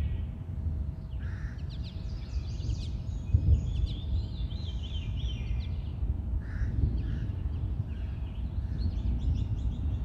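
Several wild birds calling together: quick chirps and warbling trills, with a few short, harsher calls about a second in and again past six seconds, over a steady low rumble.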